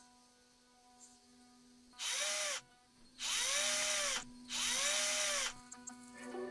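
Cordless drill/driver running in three short bursts, driving screws during assembly; each burst speeds up and then winds down in pitch as the trigger is squeezed and released.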